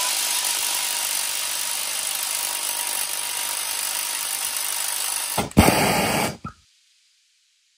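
Cordless impact driver with a long socket running steadily on the nut of a go-kart rear axle hub. A louder burst of about a second comes about five seconds in, then the sound cuts off abruptly to silence.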